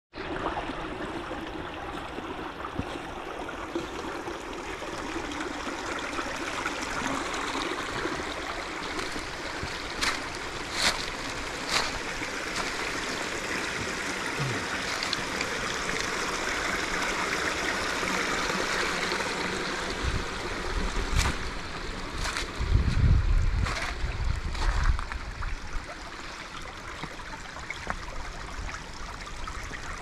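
Creek water running and trickling over rocks in a steady rush. A few sharp clicks are heard around the middle and again later. Low rumbling thumps, the loudest sounds, come about two-thirds of the way in.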